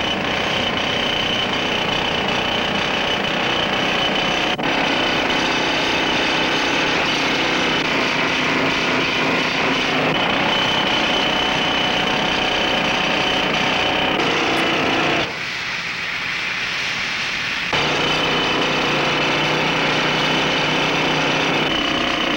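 Pneumatic drill hammering into concrete, a dense steady clatter. It turns somewhat quieter for about two seconds past the middle, then comes back at full strength. It is the sound of holes being bored for demolition charges.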